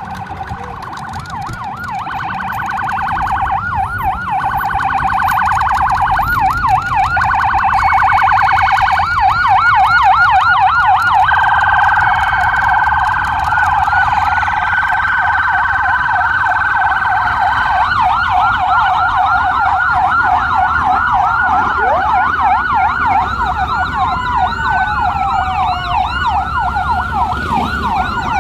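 Several emergency-vehicle sirens yelping and wailing over one another, growing louder over the first ten seconds or so as they approach, with one held steady tone in the middle.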